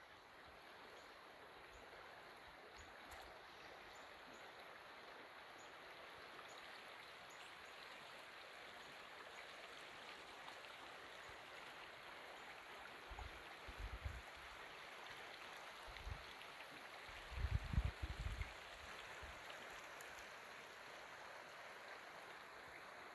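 Aravaipa Creek running, a faint, steady rush of flowing water. Two short clusters of low bumps come about two-thirds of the way through, the second the loudest.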